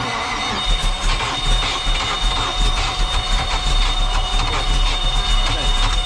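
Carbureted inboard boat engine turning over, a loud continuous mechanical clatter that starts suddenly. A steady high-pitched warning buzzer sounds over it.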